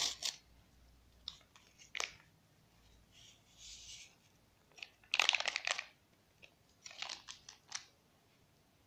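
Crinkling and tearing of a small vanilla packet being opened and emptied onto the flour, in short crackly bursts, the loudest about five seconds in.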